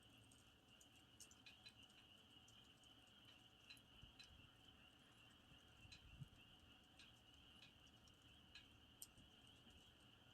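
Faint campfire crackling, with scattered small pops, over the steady high chirring of crickets.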